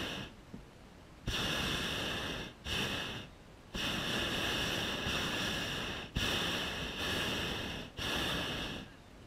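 Hot air balloon's double propane burner firing in about six blasts, each cutting in and out suddenly and lasting from half a second to a couple of seconds, with short gaps between them.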